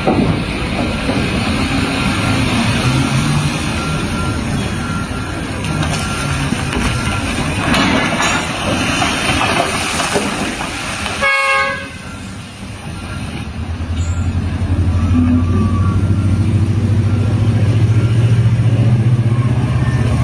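Heavy machinery rumbling and clattering, with a short horn toot about eleven seconds in. After a sudden cut, a steady low engine drone.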